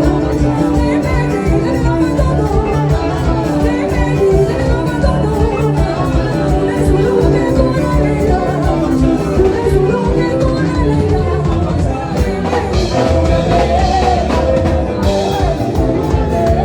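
A band playing upbeat music with a steady beat and bass, with singing over it.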